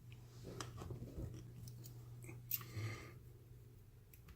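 Faint, scattered metallic clicks and scrapes of lock picking tools, a hook pick and tension wrench, being worked into the keyway of an Abus 80/45 padlock, with a slightly louder scrape about two and a half seconds in.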